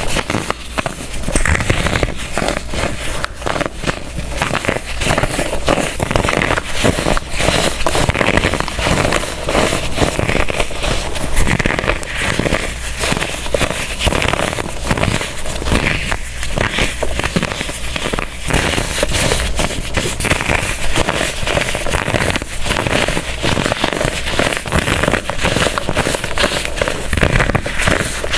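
Pressed baking soda blocks being crushed, a dense, continuous crunching and crackling as the blocks crumble.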